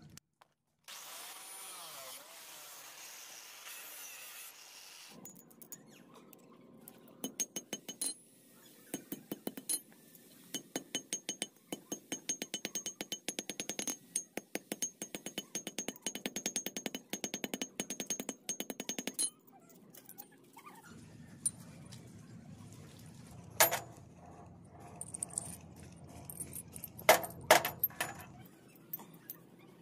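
An angle grinder cuts into a steel bar for a few seconds. Then a hammer strikes a steel rod held on an anvil in a long run of rapid, even blows with a high metallic ring, followed later by a few separate louder metal blows.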